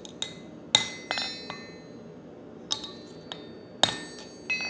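Hammer blows on a freshly forged EN9 steel axe head, knocking the blade straight so it lines up with the drift in the eye. There are about eight irregular strikes, each ringing briefly.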